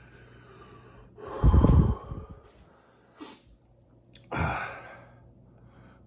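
A man gasping and breathing hard against the burn of a spoonful of pepper-extract hot sauce: a loud blast of breath about a second and a half in, then a short breath and another heavy one near the end.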